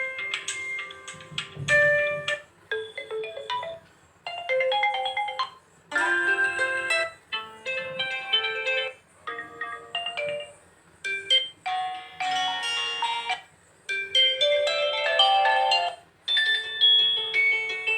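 Oppo A1k's built-in ringtones previewed one after another: about eight short melodic snippets, each a second or two long and cut off abruptly as the next tone is chosen.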